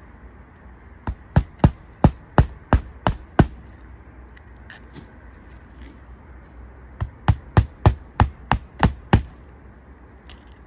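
Claw hammer driving roofing nails by hand through a 3-tab asphalt shingle. There are two runs of about eight quick strikes each, roughly three a second; the second run starts about seven seconds in. The repair is being hand-nailed rather than done with a nail gun, so the old shingles need not be lifted as far.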